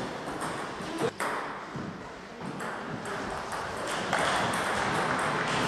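Table tennis balls clicking off bats and tables in irregular rallies at more than one table, with one sharper hit about a second in. A steady wash of background hall noise grows louder about four seconds in.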